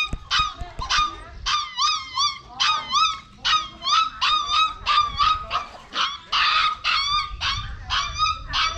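A dog whining in a fast run of short, high-pitched yelps, about three a second, each call rising and falling in pitch.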